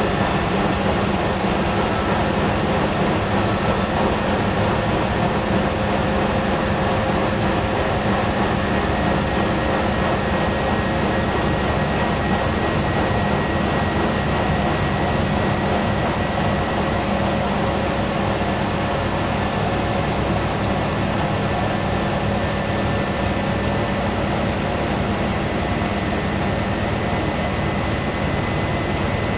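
Hoover Performa washing machine in its spin cycle: the drum and motor running at a steady high speed, a loud even rumble with a constant whine.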